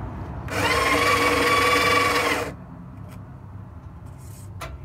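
Breville Smart Grinder BCG820's conical burr grinder running briefly, grinding coffee beans into a cup: a steady motor whine with grinding noise that starts about half a second in and cuts off after about two seconds, a short top-up of the dose.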